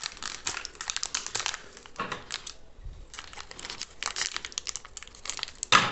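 Thin clear plastic bag around an ink bottle crinkling as hands pull at it and scissors cut it open. The crinkles come in quick irregular runs, with a short lull in the middle and one sharper, louder sound near the end.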